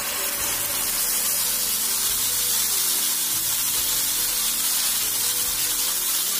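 Ground spice paste frying in hot oil in a nonstick grill pan, a loud steady sizzle as the paste hits the oil.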